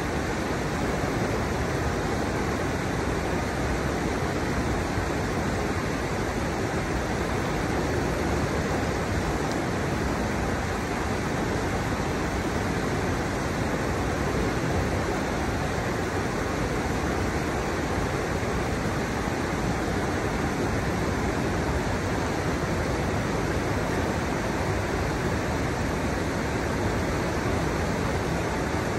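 Steady rush of a shallow river pouring over the low steps of a stepped riverbed, an even continuous splashing with no breaks.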